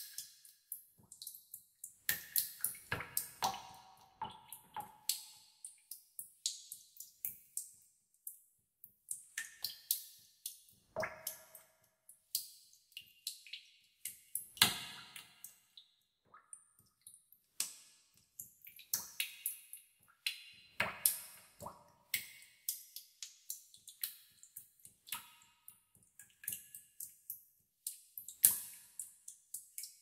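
Water drops falling into a pool in a cave, several a second at an uneven pace. Each drop is a sharp plink with an echoing tail, some with a clear ringing pitch.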